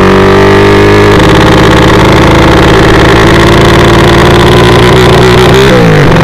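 Small engine of a sleep-engine drag bike (a bicycle-framed drag motorcycle) running loud at speed, its pitch holding steady, then dropping sharply near the end.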